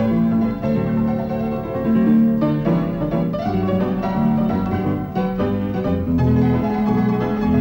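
Piano music, a steady run of notes.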